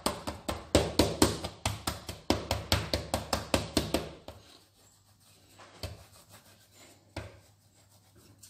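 Wooden rolling pin worked quickly back and forth over laminated dough on a granite counter, giving a fast run of wooden clacks, about six a second. After about four seconds the clacking stops and only a few soft knocks follow.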